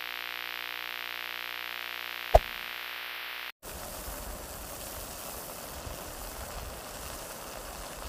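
Intro sound design: a held synthesizer chord ringing on, with one short sharp hit about two and a half seconds in. It cuts off abruptly and gives way to a steady hiss of noise with a low rumble underneath.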